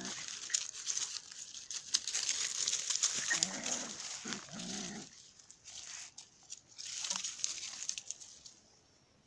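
A big dog and a small puppy play-fighting: short, low, wavering growls a few times in the first half, over scuffling and rustling in dry leaves. It goes quiet near the end.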